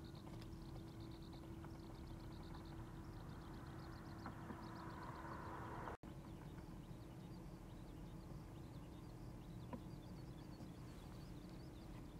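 Outdoor ambience: small birds twittering in short repeated high chirps over a steady low hum, with a brief break in the sound about six seconds in.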